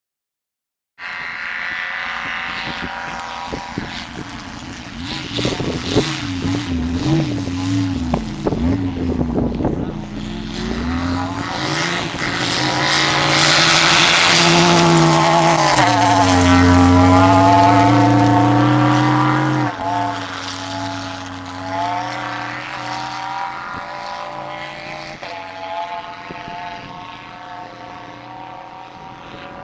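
Race car engine revving hard, its pitch climbing and falling through gear changes, swelling loudest mid-way, then dropping sharply in pitch and slowly fading as it moves away.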